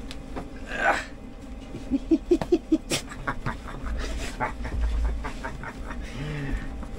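A wet dog being rubbed dry with a towel: the towel swishes, the dog gives a quick run of five or six short breaths about two seconds in, and light clicks follow.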